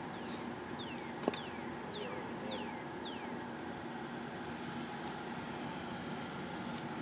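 A small bird calling: a run of about six high, thin notes, each dropping steeply in pitch, about two a second, over steady background noise. A single sharp click about a second in.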